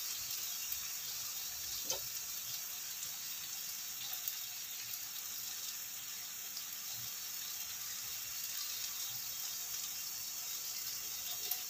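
Cucumber and baby corn sizzling in oyster sauce in a nonstick frying pan: a steady, fairly quiet hiss, with a faint tick about two seconds in.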